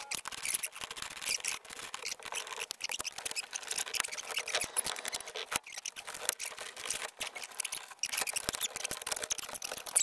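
Plastic dashboard trim on a 1993 Ford Econoline being worked loose by hand, with a screwdriver: irregular clicks, scrapes and rubbing of hard plastic. A louder click comes at the very end as the instrument-cluster bezel comes free.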